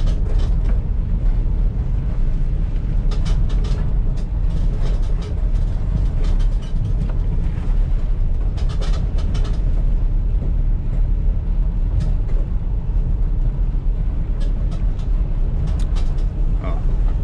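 Vehicle cabin noise while driving: a steady low engine and road rumble, with scattered clicks and rattles.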